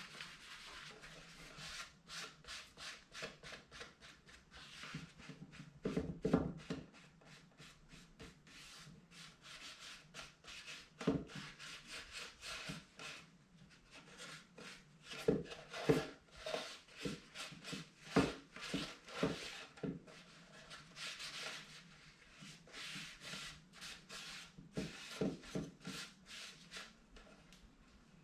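A cloth rag wiping wet stain off a cedar box in quick, repeated rubbing strokes, with a few louder thumps scattered through.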